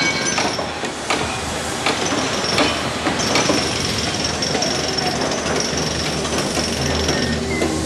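Construction-site machinery noise: a steady mechanical din with a low hum and several sharp metallic knocks in the first few seconds. A thin high whine joins about three seconds in.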